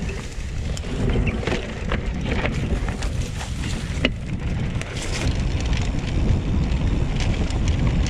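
Wind buffeting the microphone of a camera on a moving mountain bike, a heavy uneven rumble, with scattered short clicks and rattles from the bike.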